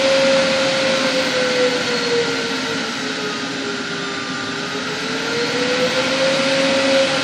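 Homemade cyclone construction vacuum running loudly, its motor whine sliding lower in the middle and climbing back up near the end as the speed control is turned down and up.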